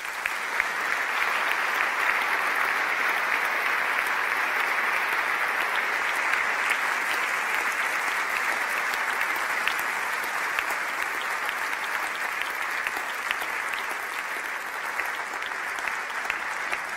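A large audience applauding steadily, many hands clapping at once, easing off slightly near the end.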